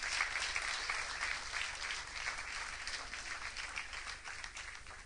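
Audience applauding, the clapping gradually thinning and fading out toward the end.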